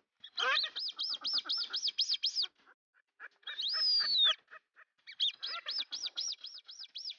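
Duck whistle call blown through cupped hands: quick runs of short, high, rising-and-falling whistles, about four a second, broken in the middle by one longer whistle that falls away at its end.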